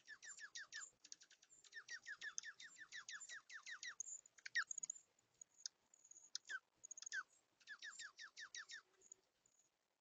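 A small bird chirping in quick runs of short, downward-sliding chirps, several a second, broken by brief pauses.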